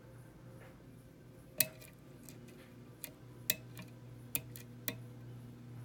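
Small sharp metallic clicks from a pin-tumbler challenge lock being single-pin picked with a hook pick and tension bar: pins being lifted and clicking against the plug, about half a dozen scattered clicks, the loudest a little over a second and a half in. A steady low hum runs underneath.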